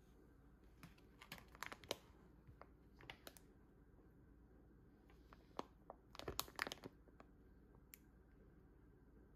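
Faint crinkling of the plastic vacuum packaging of a sausage set as it is handled, in short spells of crackles about a second in, around three seconds, and a louder cluster a little past six seconds, with one last click near the end.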